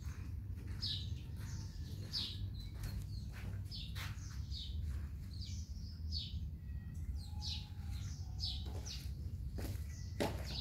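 Small birds chirping repeatedly, short falling chirps about one or two a second, over a steady low rumble.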